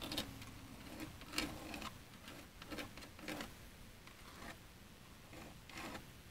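Faint, irregularly spaced scraping and rubbing strokes from gloved hands and a small tool working resin into wet fiberglass mat.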